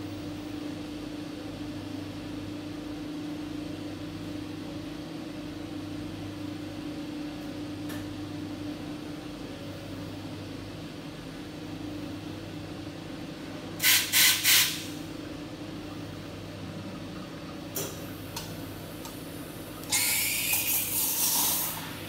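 Fracino Contempo espresso machine humming steadily while shots pull. About midway there are three short, loud blasts of steam, and near the end a longer steam hiss of about two seconds from the steam wand.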